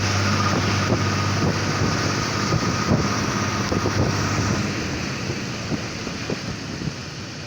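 Diesel railcar running along narrow-gauge track, heard at an open window: a steady engine hum with wind rush and scattered clicks from the wheels. The engine hum fades away a little over halfway through and the overall sound gets quieter.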